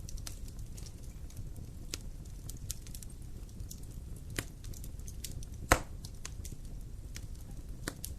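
Wood fire burning in a fireplace: a steady low rumble of flame with scattered sharp crackles and pops, the loudest pop a little before six seconds in.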